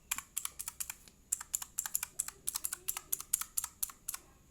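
Rapid typing on a Digital Alliance mechanical keyboard with clicky blue switches, a quick run of sharp key clicks several per second with a couple of short pauses. Membrane pads have been fitted under the letter keycaps to damp the clack.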